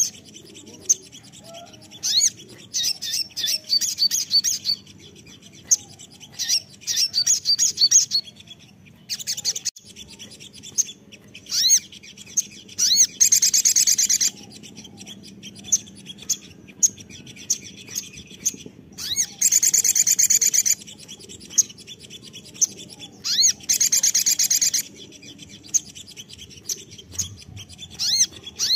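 Male olive-backed sunbird (sogon) singing: repeated high-pitched phrases of fast trills and chirps, each a second or two long with short pauses between, some as dense buzzy rattles.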